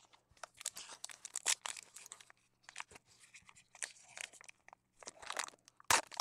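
Foil wrapper of a Prizm baseball card pack being torn open and crinkled, in quick irregular crackles, with a sharper crackle near the end.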